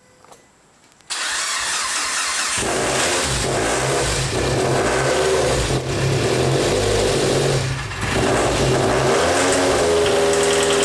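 Mitsubishi Evo's 4G63 turbocharged two-litre inline-four being started: a few faint clicks, then the starter cranks about a second in, and the engine catches and settles into a steady idle.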